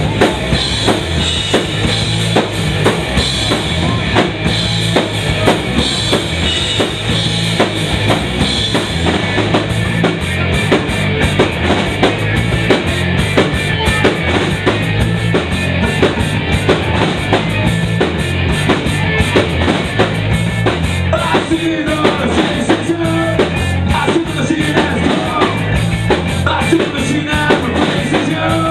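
A live rock band playing loud: electric guitars over a driving drum kit, with steady kick and snare hits.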